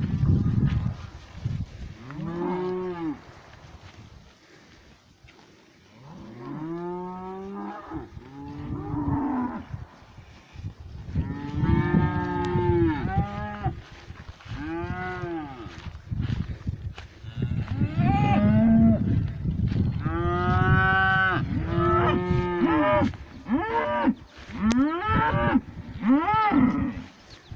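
A herd of cattle mooing over and over, several cows calling one after another and overlapping, each moo rising and then falling in pitch. After a short lull a few seconds in, the calling grows denser and louder for the rest of the stretch.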